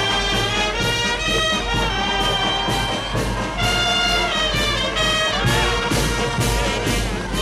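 Brass band music, trumpets carrying sustained notes over a steady beat.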